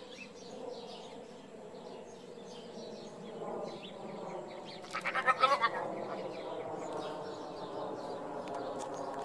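Small birds chirping, with a short bleat from a goat about five seconds in.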